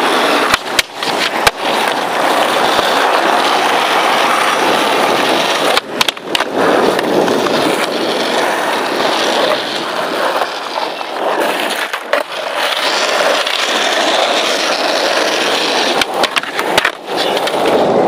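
Skateboard wheels rolling over rough asphalt, a steady grinding rumble. It is broken several times by sharp clacks of the board on the ground, near the start, about 6 s and 12 s in, and twice near the end.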